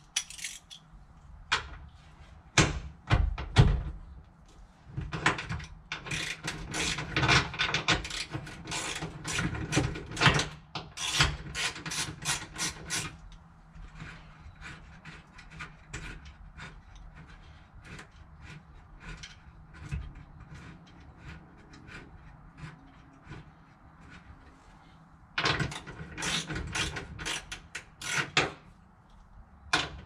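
Hand ratchet clicking in quick runs as it turns the bolts of a car's B-pillar seatbelt mount, with a pause of several seconds between the runs.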